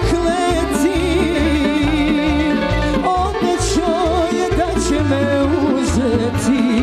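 A woman singing a traditional Bosnian sevdalinka live into a microphone, her held notes wavering with vibrato, over a small folk band of violins, accordion and double bass.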